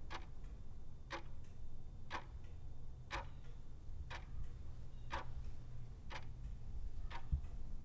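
A clock ticking about once a second, eight even ticks, over a low steady hum.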